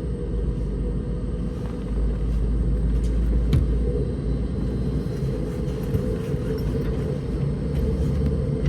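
Steady low rumble inside the cabin of a Boeing 717 taxiing, its two rear-mounted Rolls-Royce BR715 engines at idle, with a steady mid-pitched hum over it. A single short click about three and a half seconds in.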